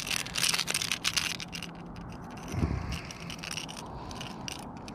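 Splashing and crackling as a hooked speckled trout dangles and wriggles at the water's surface and is grabbed by hand, fading to light handling scrapes with one dull thump about two and a half seconds in.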